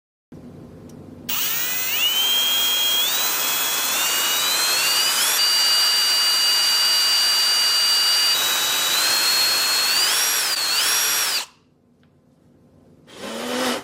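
Electric drill whining at high speed while drilling into an iPhone 7, its pitch stepping up a few times, holding steady, then wavering before it cuts off suddenly.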